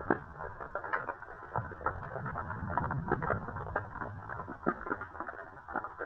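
Underwater ambience recorded by a DJI camera: muffled water movement under many irregular clicks and crackles, with a dull rumble beneath.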